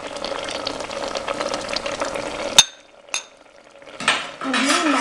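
A metal ladle stirring and scooping simmering broth in a metal pot, with light clinks and scrapes. The sound cuts off abruptly about two and a half seconds in, and stirring and clinking start again near the end.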